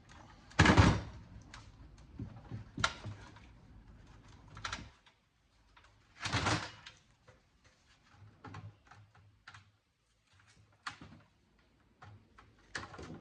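Plastic and metal parts of a cable TV box clicking and clattering as they are handled and pulled apart by hand. There are scattered sharp clicks and two louder scraping rattles, one about a second in and one about six seconds in.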